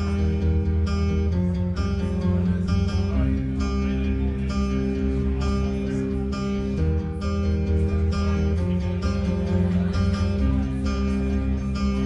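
Instrumental guitar played live through loop pedals: layered plucked phrases over sustained low notes, with the same pattern seeming to come round again about every seven seconds.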